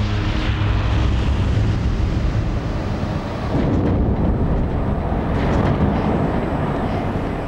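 Rolls-Royce Trent 900 jet engine, its fan destroyed in a blade-off test, making a heavy, noisy rumble that swells about halfway through.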